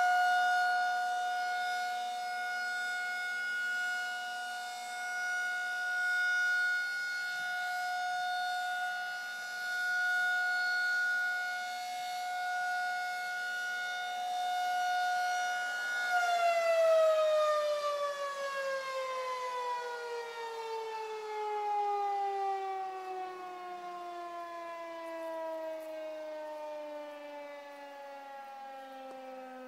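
Federal Signal 2000 outdoor tornado warning siren sounding a steady, clear tone that swells and fades in loudness every few seconds. About halfway through it begins winding down, the pitch sliding steadily lower as it ends its alert.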